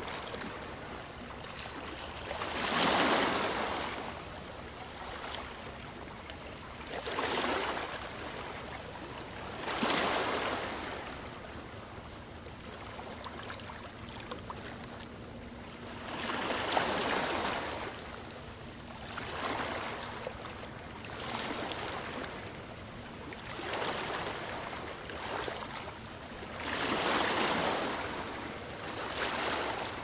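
Small sea waves breaking and washing up over a shallow shore, each wave a rising hiss of foam that swells and fades every three to four seconds, a few of them much louder than the rest.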